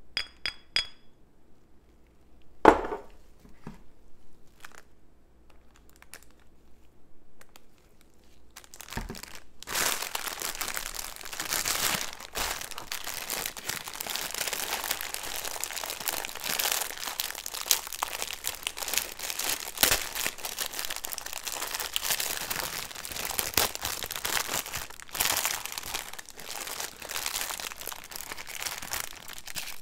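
Plastic instant-ramen packets being handled and crinkled, starting as a few scattered clicks with a sharp knock about three seconds in, then continuous dense crinkling from about ten seconds in until just before the end.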